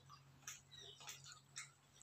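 Near silence with a few faint, short clicks from hands pulling apart roast chicken, over a faint steady low hum.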